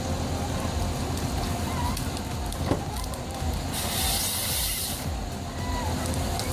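Heavy machinery running with a steady low rumble; a sharp knock a little under three seconds in, then a loud hiss for about a second.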